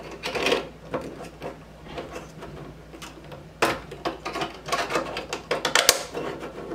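Hard 3D-printed PLA plastic parts clicking, knocking and rubbing against each other as they are handled and fitted together by hand, in irregular bursts with sharp clicks about halfway through and near the end.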